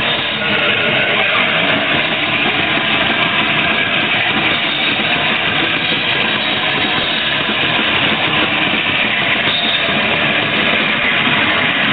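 Crust punk band playing live: a loud, unbroken wall of distorted guitar and drums, badly distorted by an overloaded camera microphone.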